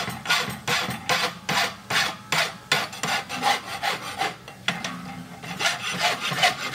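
Hand file being stroked back and forth across the edge of a forged rocker bar horseshoe held in a vise, about two to three strokes a second, with a short break a little past four seconds in.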